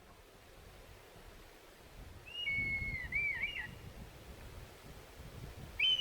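A bird calling twice outdoors: two drawn-out whistled calls that waver and slide down at the end, the first about two seconds in and the second near the end, over a faint low rumble.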